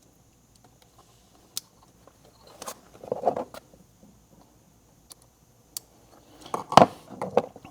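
Hands working plastic wiring-harness connectors: a few sharp clicks and small rattles spread through, the loudest click near the end as a connector is pushed back in and seated.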